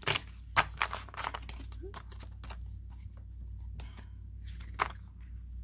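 A deck of tarot cards handled and shuffled by hand: a quick run of sharp card snaps and slides in the first second or so, then quieter handling with one more snap near the end.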